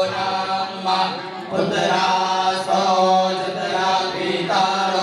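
Priests chanting Vedic Sanskrit mantras in a steady, sing-song recitation. There are short breaks between phrases about a second and a half in and again near the end.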